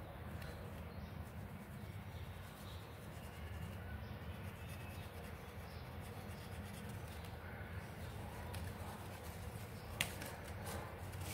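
Faint strokes of a felt-tip marker on paper over a low, steady room hum, with a sharp click or paper rustle about ten seconds in.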